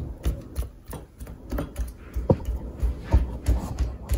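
Hand punching and pressing chapati dough in a cooking pot: irregular thumps and knocks, a few a second.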